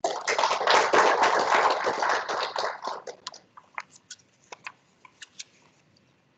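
Audience applauding: dense clapping for about three seconds that thins out to a few scattered claps and stops.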